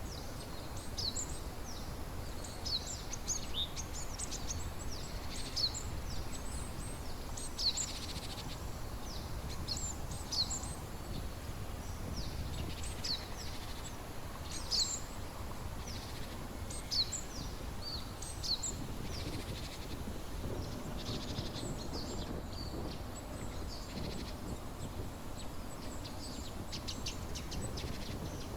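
Small birds chirping over and over, quick high notes that fall in pitch, scattered through the whole stretch, above a steady low rushing noise.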